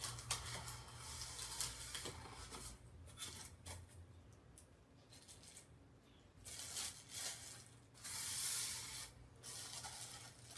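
Styrofoam packaging being pulled apart and plastic bag wrapping crinkling as it is handled, in irregular rustling bursts, loudest about eight seconds in.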